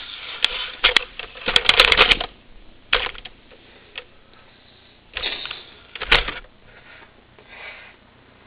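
Handling noise: a quick run of sharp clicks and rattling about two seconds in, then single clicks near three and six seconds, with short bursts of rustling between.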